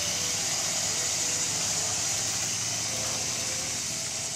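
G scale garden train running along outdoor track, a steady hum under a hiss that fades slightly as the train moves off.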